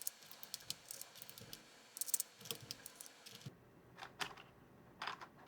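Plastic keycaps clicking and clattering as they are handled and tried on a Freewrite Alpha's key switches: faint scattered clicks, with a denser cluster about two seconds in.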